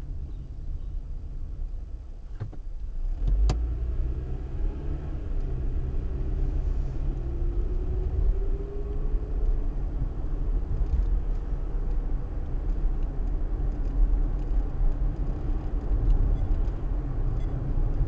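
Car driving along a road: steady low engine and tyre rumble that grows louder about three seconds in as the car picks up speed, with a faint rising whine a few seconds later and a single click near the start.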